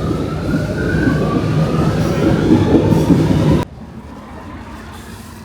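Metro train running with a loud rumble and a rising whine from its motors as it picks up speed. The sound cuts off abruptly about three and a half seconds in, leaving a much quieter background.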